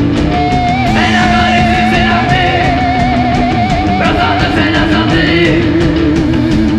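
Rock music: a band with electric guitars and a steady drum beat, and a long wavering lead note held through the first few seconds.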